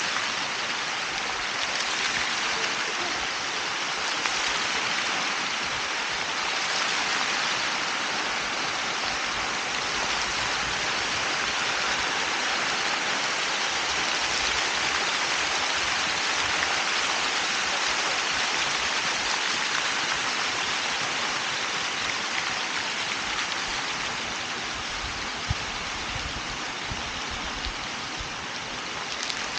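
Fountain jets spraying and splashing into a basin: a steady rush of falling water.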